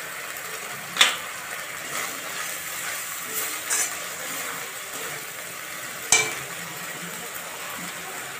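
Spiced masala paste frying in oil in a metal kadai, with a steady sizzle as it is stirred. A spatula knocks sharply against the pan twice, about a second in and again about six seconds in.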